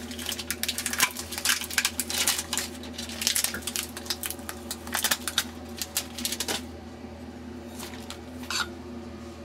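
Tape being peeled off a glass mirror: a dense run of crackling and clicking for about six and a half seconds, then a few scattered clicks as the glass is handled, over a steady low hum.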